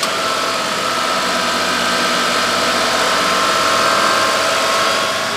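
Tata Altroz's 1.2-litre three-cylinder petrol engine running at about 2000 rpm with the AC compressor engaged and loading it, a steady whine over the engine noise.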